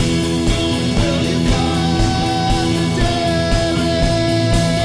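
Rock music with guitar over a steady beat, with a long held high note coming in about a second and a half in.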